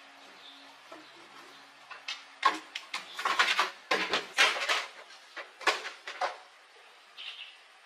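A rapid run of sharp knocks and clatters, hard objects being handled, bunched in the middle with one softer knock near the end.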